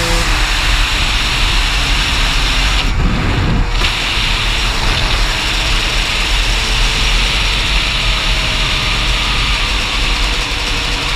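Dirt bike engine running during a ride, under a steady rush of noise, with a brief change in the sound about three seconds in.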